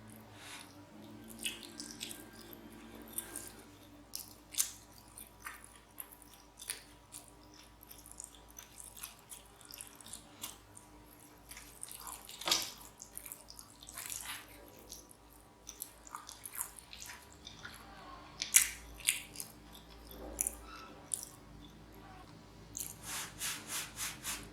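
Close-up eating of cheesy macaroni and cheese: wet chewing and smacking mouth clicks at irregular intervals. Near the end comes a quick run of about six clicks in a row.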